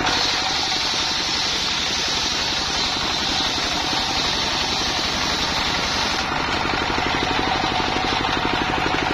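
Rig-built circular sawmill driven by a single-cylinder diesel engine: the engine chugs at a steady, rapid beat while the saw blade cuts along a plank, giving a high steady whine. The cutting whine stops about six seconds in, and the engine and blade keep running.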